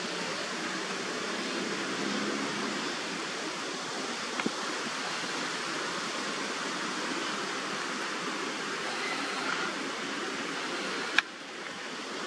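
Steady, even hiss with no clear pitch, like wind noise or rushing water, with a faint click partway through and a sharp click near the end, after which the hiss drops a little.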